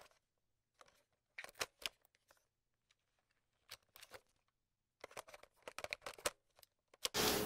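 Faint, sparse crisp clicks and rustles with silence between them, bunching into a quick flurry of clicks about five seconds in; just before the end a sudden loud rush of noise starts, leading into intro music.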